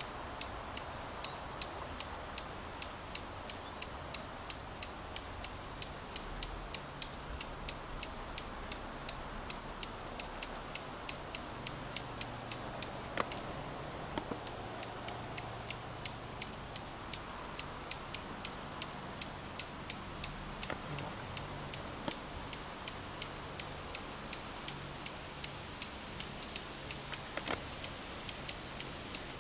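A finch chirping over and over, short sharp high notes at about two to three a second without a break: alarm calls at a person who has come close, apparently near its nest.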